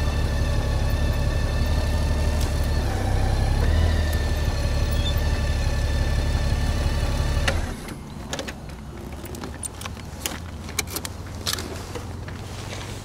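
Motorcycle engine running steadily, then cut off abruptly about seven and a half seconds in, followed by scattered light clicks and knocks.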